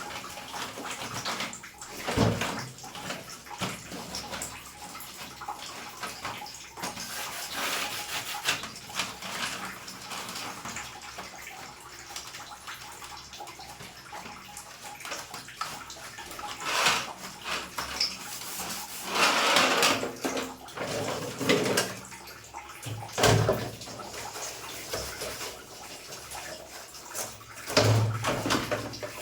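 Water running and splashing as air conditioner parts are washed, an uneven hiss with a few knocks of parts being handled.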